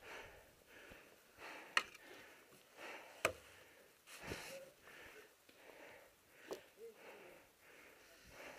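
A player's rapid, heavy breathing, about two breaths a second, with two sharp snaps about a second and a half apart in the first half.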